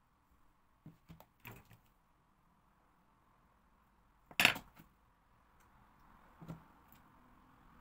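A metal spoon clinking and knocking against a plastic tub and moulds: a few light clicks early on, one sharp loud clink about halfway through, and a fainter knock a couple of seconds later.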